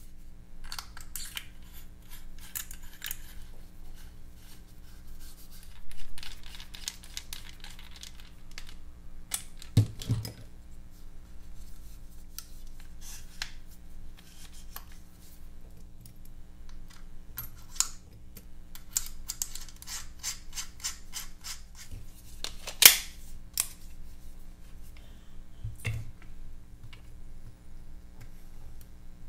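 Hands handling a cordless soldering iron's plastic housing and small hand tools on a workbench: scattered small clicks, taps and scrapes, with a few louder knocks and one sharp click about three-quarters of the way through.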